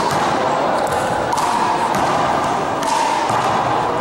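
Rubber handball in a one-wall rally: a few sharp smacks about a second and a half apart as the ball is struck by hand and hits the wall and gym floor, over steady background noise.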